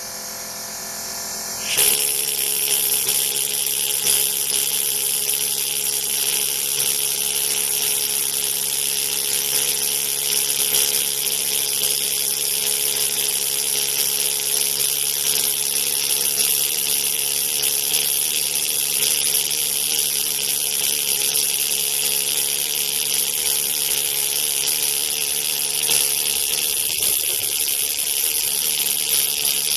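A power tool starts about two seconds in and runs steadily against limestone, with a strong high hiss over a constant hum, as the stone surface is redressed.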